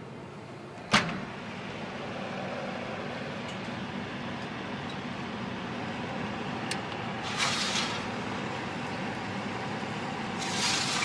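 Cosori food dehydrator running with a steady fan hum. There is a sharp click about a second in. Brief metallic rattles come around the middle and just before the end as a wire drying tray is slid out.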